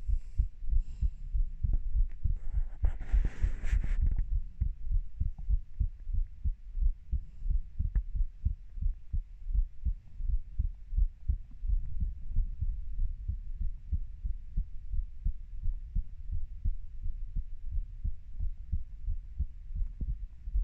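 Human heartbeat recorded close up: steady, evenly repeating low thumps. A brief rustling noise sits over the beats about three seconds in.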